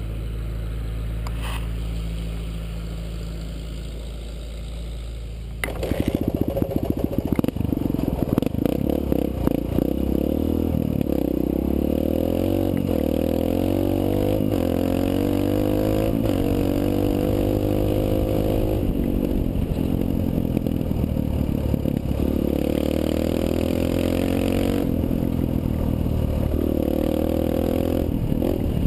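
Suzuki DR-Z125L dirt bike's small four-stroke single-cylinder engine idling steadily, then about six seconds in pulling away and running hard, its pitch rising and falling again and again as the throttle opens and closes.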